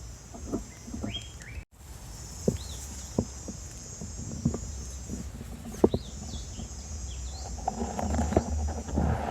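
Outdoor rural ambience: a steady high insect-like drone with birds chirping several times, and scattered sharp knocks.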